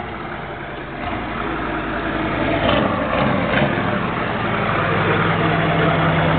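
Ford IDI diesel truck engine running steadily, getting louder after about a second, as it warms up after an oil cooler rebuild.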